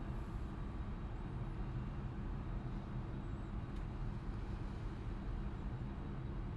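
Tugboat's diesel engine running steadily with a low, even rumble while the tug holds a towline to a bulk carrier.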